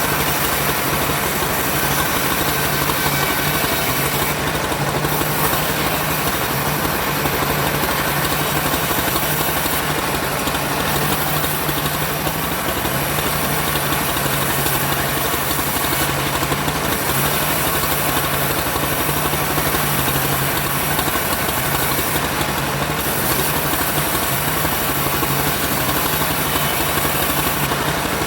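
Engine running steadily with a constant low hum, and a brief dip in its high hiss about every six seconds.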